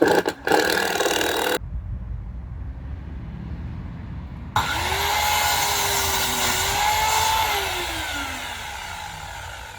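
Power drill driving a large screw into timber: a short burst, then a longer run whose motor tone holds steady and then drops in pitch as the screw bites and the drill slows.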